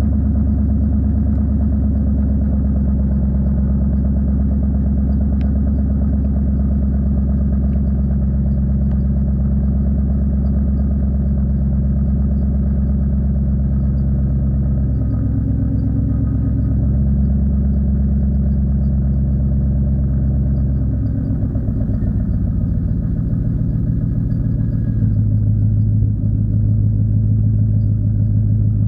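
Mercedes M119 4.2-litre V8 idling steadily after a cold start at about −5 °C, having stood unused for a month. Its note shifts about two-thirds of the way through.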